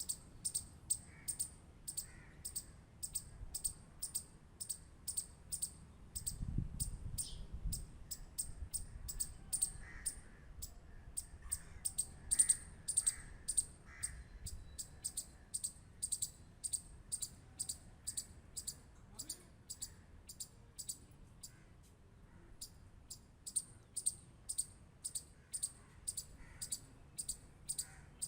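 Squirrel clicking: a steady run of sharp, high clicks about two a second, with a short pause roughly three quarters of the way through. A brief low rumble comes about six seconds in.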